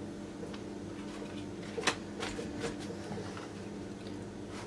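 Quiet handling of a sheet of yufka pastry being folded on a silicone pastry mat: faint soft rustles and light taps, one sharper tick about two seconds in, over a steady low hum.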